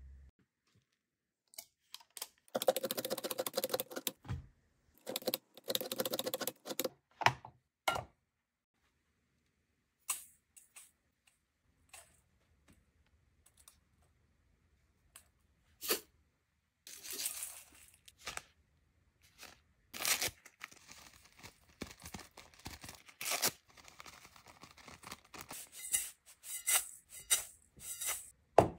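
Hand food-prep sounds: two stretches of rustling near the start, scattered short clicks and taps of a spoon on a stainless steel bowl, then about eight seconds of a spoon scraping and stirring salt and spices around the bowl near the end.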